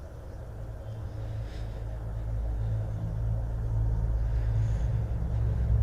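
Low rumbling drone from a horror film's sound design, swelling steadily louder as tension builds.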